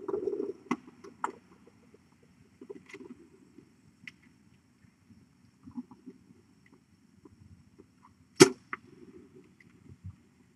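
Faint scattered rustles and light clicks, with one sharp, much louder click about eight seconds in.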